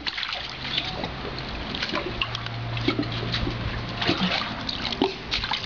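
Pool water sloshing and splashing, with drips and small splats, as a small child in inflatable armbands hauls herself out over the pool edge. A low steady hum comes and goes underneath.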